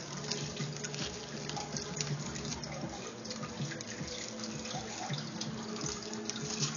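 Bubble wrap crinkling and rustling as it is handled and folded, a continuous stream of small crackles over a low steady hum.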